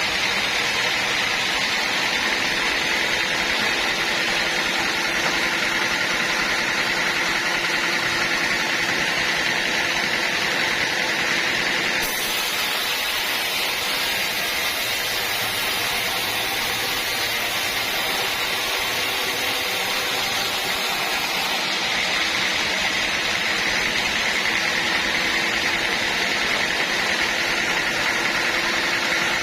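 Sawmill machinery running steadily: an engine and saw making a continuous mechanical noise with a steady hum. The sound shifts abruptly about twelve seconds in and again a little past twenty seconds.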